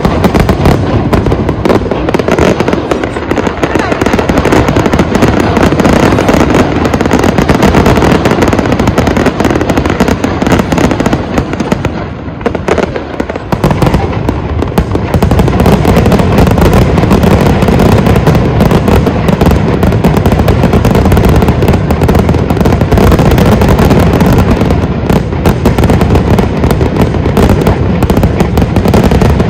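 Fireworks show finale: a continuous barrage of aerial firework bangs and crackles, densely overlapping, easing briefly about twelve seconds in before carrying on just as hard.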